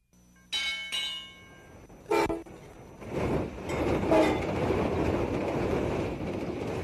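Sound-effect sting for a logo: two ringing tones, a short horn-like blast about two seconds in, then a rush of rail-train noise going by with a second horn-like blast, fading out slowly.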